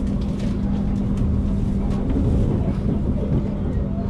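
Passenger train running along the track, heard from inside the carriage: a steady low noise with a constant hum.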